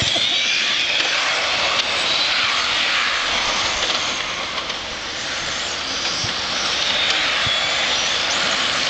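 Several radio-controlled on-road racing cars lapping the track, their small motors making a high-pitched whine that rises and falls in pitch as the cars speed past.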